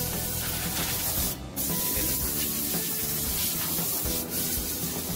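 Compressed-air blow gun hissing as it blasts dust out of a car's interior, cut off briefly twice as the trigger is let go.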